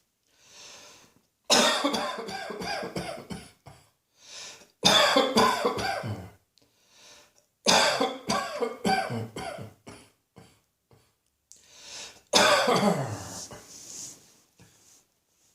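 A person coughing in four hard fits, each a quick string of several coughs lasting about two seconds, with short pauses between them.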